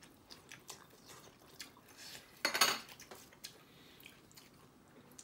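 Tableware handled during a meal: light scattered clinks and clicks, with one louder clatter lasting about half a second near the middle.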